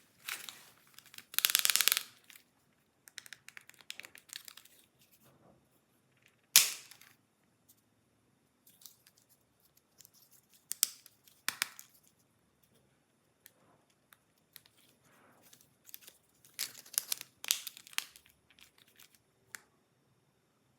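Plastic toy parts being pried and broken apart by hand: scattered clicks, scrapes and crackles, with one sharp loud crack about six and a half seconds in.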